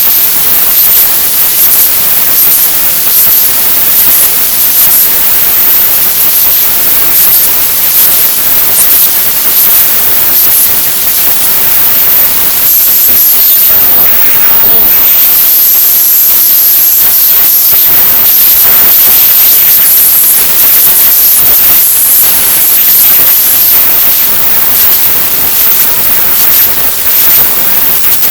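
A pop-rap song so heavily treble-boosted and clipped that it comes out as loud, harsh, static-like hiss. Little of the beat or vocals is recognisable, and the sound is brightest in its shrillest range.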